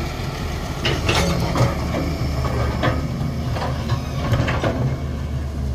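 Heavy diesel engine running steadily, joined from about a second in by a series of sharp clunks and scrapes.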